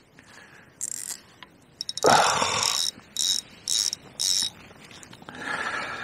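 Fishing reel being wound in short spurts of ticking, retrieving line that a fish has just snapped off. About two seconds in there is one louder, fuller noise, and near the end a fainter rustle.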